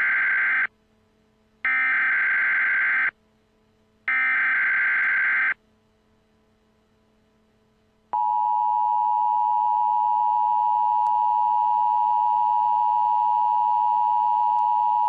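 Emergency Alert System SAME header: three data bursts about a second apart, the first already under way, which carry the coded alert. After a pause, the steady two-tone EAS attention signal starts about eight seconds in, announcing the spoken alert message.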